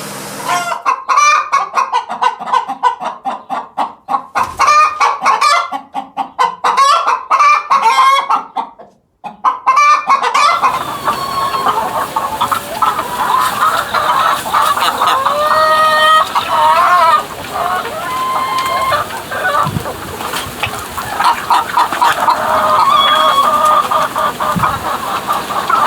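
Chickens clucking and calling in fast, pulsed runs, then after a cut about ten seconds in, chickens making longer calls, some of which bend up and down in pitch.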